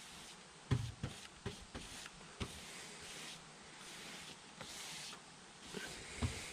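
Paint being spread on a garage door: repeated swishing strokes, each about half a second to a second long, with several light knocks, the sharpest about a second in.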